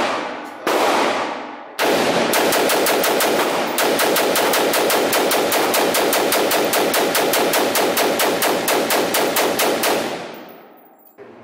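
AR-style rifle firing fast and evenly, about five or six shots a second, with the echo of an indoor range. A short string of shots comes about half a second in, then a long unbroken run stops at about ten seconds and the echo dies away.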